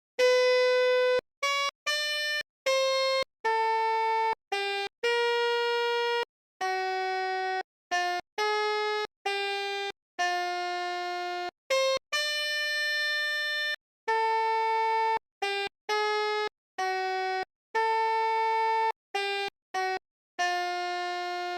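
Telolet bus-horn notes played one at a time as a random tune on a pianika keyboard. There are about twenty notes of changing pitch, some short and some held for a second or two, each cutting off cleanly into a brief silence before the next.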